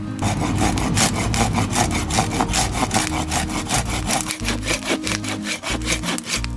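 Hand pruning saw sawing back and forth through a hard split log of firewood in fast, even strokes, about five a second. The wood is so hard that the blade barely bites.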